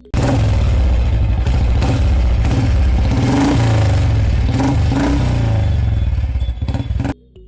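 An engine running and revving, with a low rumble and clatter. The pitch rises and falls several times, and the sound starts and cuts off abruptly.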